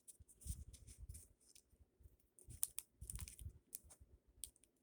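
Faint, irregular clicks and taps from a computer keyboard and mouse, with soft low bumps in between.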